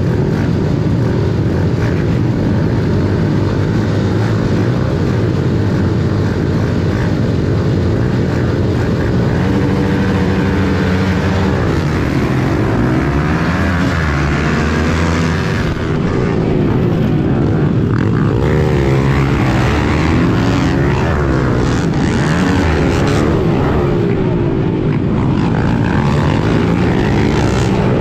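A field of pit bike engines running and revving on the starting line. About a third of the way in they launch, and the nearest bike's engine revs up and drops repeatedly through gear changes, with other bikes running close alongside.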